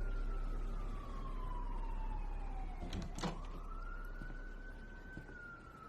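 A siren wailing with a slow rise and fall: the pitch falls for about three seconds, then climbs back and starts falling again near the end. A single sharp click comes about three seconds in, where the pitch turns.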